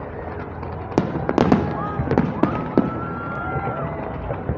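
Fireworks display: an irregular string of sharp bangs and crackles from bursting shells over a steady rumble, busiest from about a second in.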